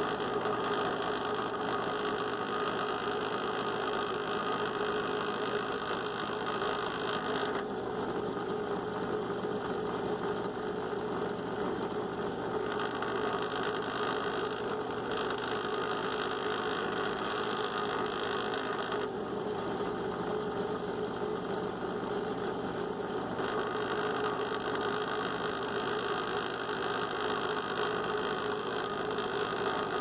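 Drill press motor running steadily while a tiny drill bit bores into small plastic posts. A higher, grainier sound comes and goes in several stretches as the bit cuts.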